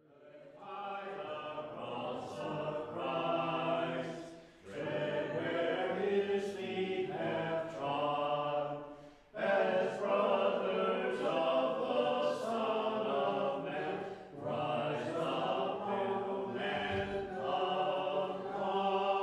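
Voices singing a liturgical chant together, in long phrases with short pauses for breath about four and a half and nine seconds in.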